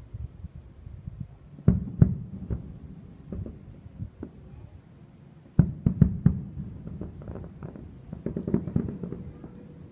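Aerial fireworks shells bursting: two sharp bangs about two seconds in, a quick run of bangs about halfway through, and a denser patter of smaller pops near the end.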